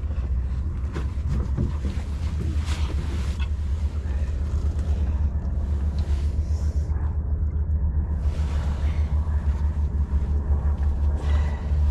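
Wind buffeting the microphone: a steady low rumble whose level flickers constantly.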